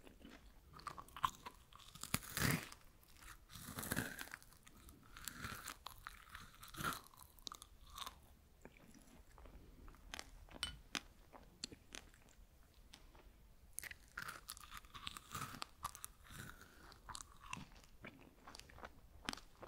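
Freeze-dried strawberries being bitten and chewed: crisp, crackling crunches coming in bunches, the loudest in the first few seconds and another run in the last third, with small scattered clicks in between.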